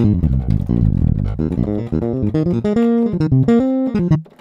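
Scarbee Jay-Bass sampled electric finger bass played from a keyboard: a bass line of plucked notes, quick at first, then a few longer held notes, stopping just before the end.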